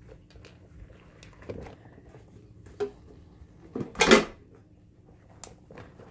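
Soviet rubber gas mask and leather-gloved hands knocking and scraping against a steel ammo can as the mask is lifted out: a few light clicks and knocks, then one loud clatter about four seconds in.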